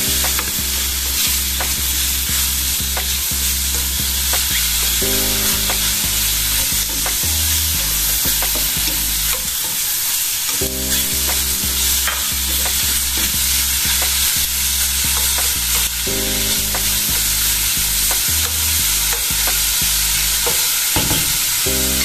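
Mushrooms and garlic sizzling steadily as they fry in oil in a nonstick frying pan, with a spatula stirring and scraping against the pan in short clicks. A low repeating tune loops underneath every few seconds.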